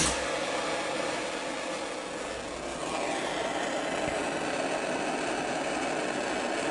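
Handheld gas torch flame coming on suddenly, then burning with a steady hiss as it heats a small brass watch wheel for heat-bluing.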